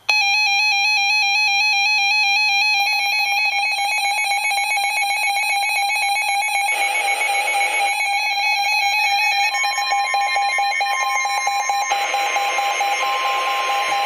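Weather radio alert alarm sounding for a flash flood warning: a loud, rapidly warbling electronic tone. About nine and a half seconds in, a steady single tone, the NOAA Weather Radio warning alarm tone, joins it, and radio hiss comes up briefly around seven seconds and again near the end.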